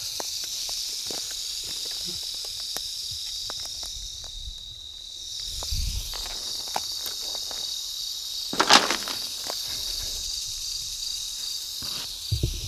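Crickets trilling steadily in a high, unbroken tone, over the rustle and crunch of footsteps through dry grass. A louder brush of grass comes about two thirds of the way through.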